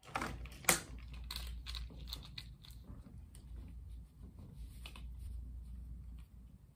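Handling noise from fitting a Bose ProFlight Series 2 in-ear headset: crunchy rubbing and scraping as the earpieces are pushed into the ears. A sharp click comes less than a second in, and a scatter of smaller clicks follows.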